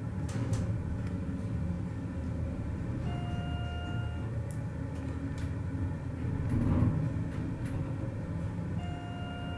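Westinghouse hydraulic elevator car descending: a steady low rumble of the ride, swelling briefly about two-thirds of the way through. A one-second electronic beep sounds twice, a few seconds into the ride and again near the end.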